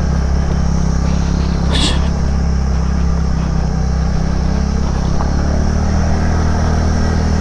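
TVS NTorq 125 scooter's single-cylinder engine running steadily under way, with a brief hiss about two seconds in.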